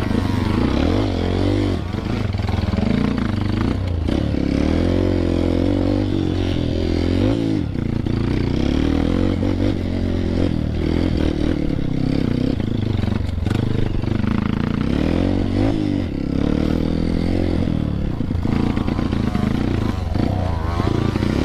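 Honda CRF dirt bike engine under way, its pitch rising and falling again and again as the throttle is opened and closed.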